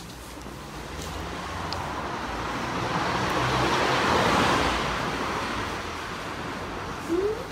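A car passing on the street: its noise swells to a peak about four seconds in and fades away. A brief rising chirp near the end.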